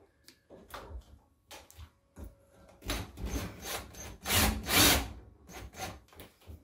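Skil cordless drill driving a sheetrock screw through a painted MDF block into the wall, the screw grinding into the wood in a few short scrapes and then two longer, louder bursts about halfway through.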